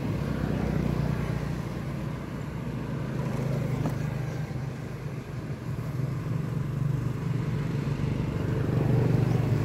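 An engine running steadily: a low, even motor hum that grows slightly louder near the end.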